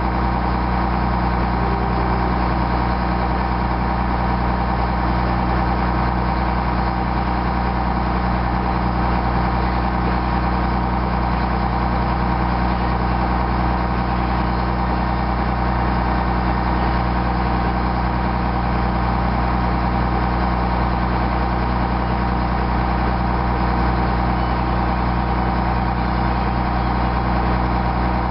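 Snow groomer's diesel engine running at a steady speed, with no rise or fall in pitch.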